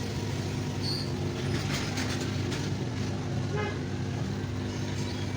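A steady low mechanical hum, with a brief high beep about a second in and a short pitched toot about three and a half seconds in.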